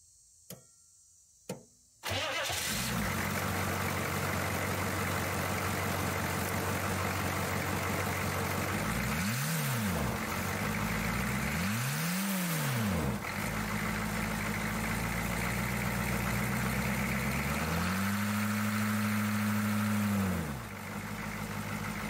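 The 1982 Chevy C10's 6.2-litre V8 diesel starts abruptly about two seconds in, after two faint clicks, and settles into a steady idle. It is revved in two short blips, then held at higher revs for a couple of seconds before dropping back to idle: the new accelerator cable is working the throttle.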